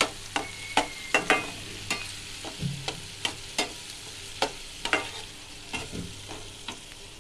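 Spatula stirring chopped onions in a metal kadai: irregular clicks and scrapes against the pan, about two or three a second, over a faint sizzle of onions frying in oil and butter.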